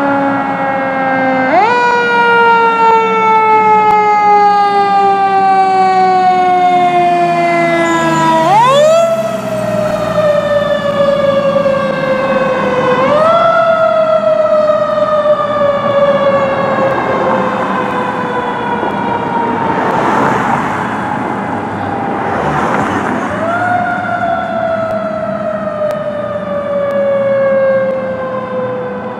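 Fire engine siren sounding while the truck responds: the pitch climbs quickly four times and after each climb falls slowly over several seconds.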